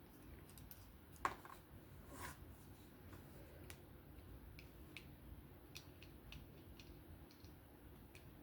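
Faint, scattered small clicks and ticks of a driver bit working the pivot screw of a titanium folding knife as the pivot is taken out, with one sharper click about a second in.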